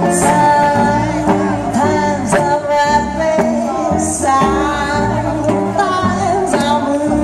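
Swing dance music with a singer's voice, playing steadily.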